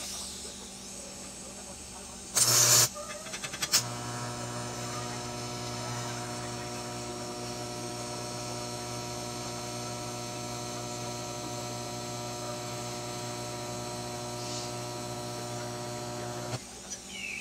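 Electric arc welding on steel: a brief loud burst with a few clicks, then a steady buzzing hum over a hiss as the arc is held for about twelve seconds, cutting off abruptly near the end.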